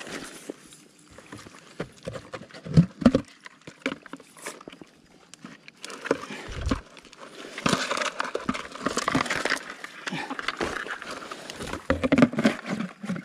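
Footsteps in rubber waders on mangrove mud, with scattered knocks and thuds, then a long stretch of rustling and scraping from about seven seconds in.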